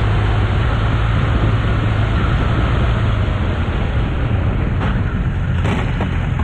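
Steady driving noise of a moving vehicle picked up by its dashcam: tyre and road noise with a low engine drone. A faint brief noise stands out about five and a half seconds in.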